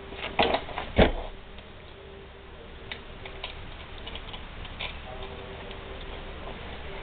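Light metallic clicks and taps of a hex key and engine parts being handled on a moped engine, with one louder knock about a second in, over a faint steady hum.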